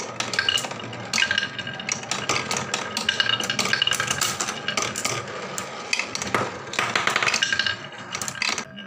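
Marbles rolling and clattering along a wooden marble run: a dense, continuous stream of clicks and clacks with short ringing clinks mixed in.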